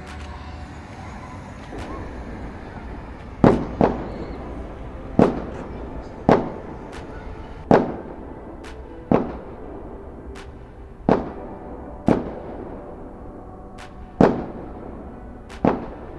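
Fireworks exploding: about ten sharp bangs, starting a few seconds in and spaced roughly one to two seconds apart, each trailing off in a brief echoing rumble.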